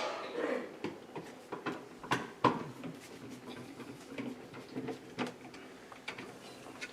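Light plastic clicks and knocks as a First Alert BRK SMI100-AC smoke detector is handled and fitted onto its ceiling mounting plate. The sharpest knock comes about two and a half seconds in.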